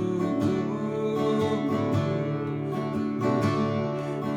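Acoustic guitar strummed in a country waltz-style accompaniment, an instrumental passage between sung lines of a cowboy song.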